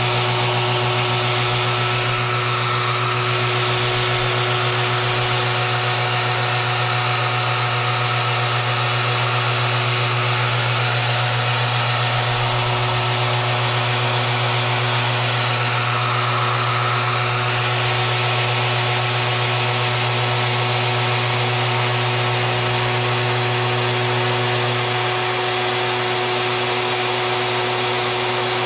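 Ridgid router on a Maslow CNC sled running steadily while the machine works through a test pattern: a continuous motor whine and hum, dipping slightly about 25 seconds in.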